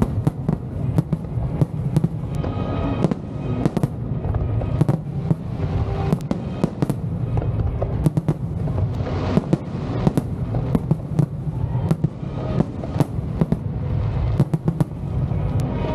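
Fireworks display: rapid, overlapping bangs and crackles of bursting shells over a continuous low rumble, with music playing underneath.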